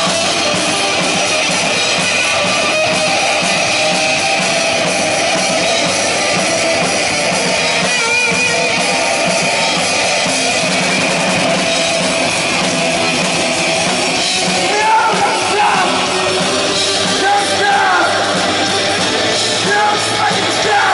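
Live heavy rock band playing loud: distorted electric guitars over a drum kit, with a voice singing over the band in the last few seconds.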